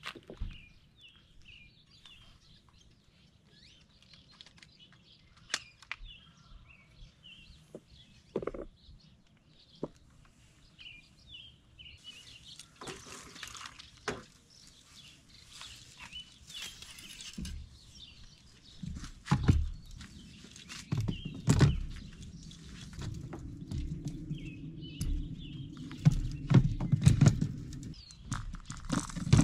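Small birds chirping over and over, with scattered knocks and rustling, and in the second half louder low thumps and rumbling from gear being handled.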